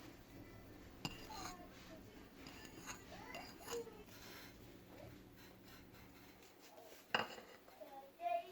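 Spoon scraping and stirring in a bowl of chickpea chaat, with two sharp clinks against the bowl, one about a second in and one near the end. Faint voices are in the background.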